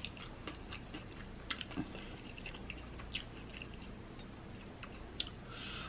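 A person chewing a crisp-fried beef birria taco: soft mouth sounds with scattered small crunches and clicks, a few sharper ones about a second and a half in and again around three and five seconds in.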